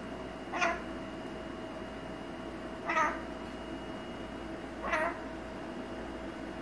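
Blue-crowned conure giving three short calls, about two seconds apart.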